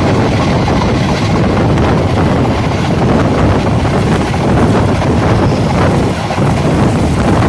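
Loud, steady rushing noise of a moving train, with wind buffeting the microphone.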